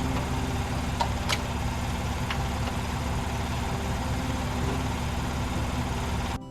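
Tractor engine running at a steady idle, with a few sharp clicks about a second in and again near two seconds. It cuts off suddenly near the end.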